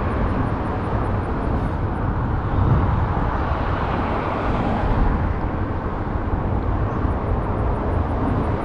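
Steady highway traffic noise, a continuous low rumble with no single vehicle standing out.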